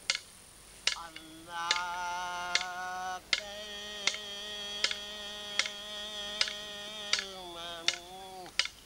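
Kulama ceremony song: a voice chanting long held notes that fall at the ends of phrases, over a steady sharp beat struck about once every three quarters of a second.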